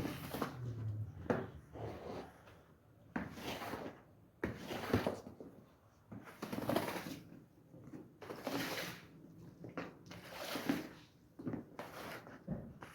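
A series of swishing strokes of a cleaning tool worked over a rug, roughly one every second or two.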